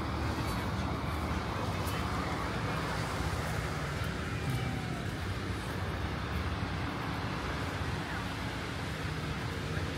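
City street traffic: motor vehicles running steadily with a low engine hum, under a faint murmur of passers-by's voices.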